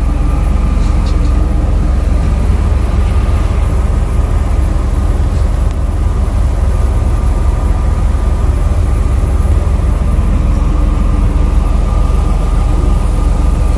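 Steady, loud low rumble of a large vehicle engine, with a faint steady hum above it.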